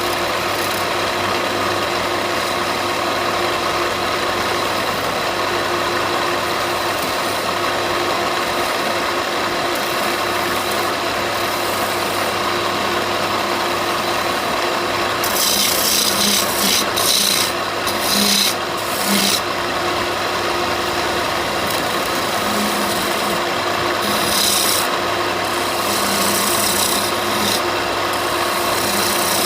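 An electric power tool runs steadily while working wood, with a rough, rasping sound of the surface being abraded. There are louder, hissier passes about halfway through and again near the end.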